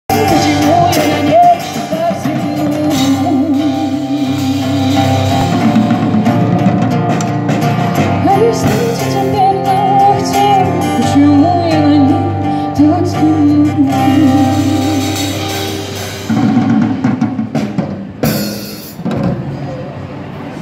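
Amplified live street band: a woman singing over acoustic guitar and a drum kit, played through PA speakers. The music breaks off about sixteen seconds in, giving way to street noise with a short burst of noise near the end.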